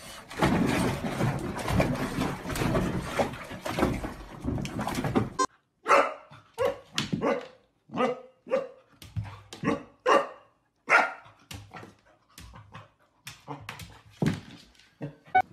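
A dog splashing in bathwater gives a dense, rushing water noise. About five seconds in, after a sudden cut, a puppy barks at its own reflection in a mirror: a string of short, high barks, one or two a second.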